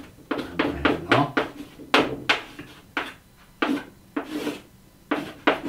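Chalk writing on a chalkboard: a run of short, scratchy strokes and taps, with a few brief pauses.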